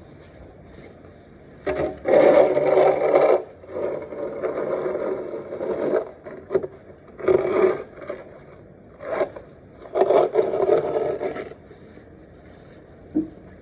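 Snow being scraped and cleared in about six separate strokes, each lasting from half a second to about two seconds, with pauses between.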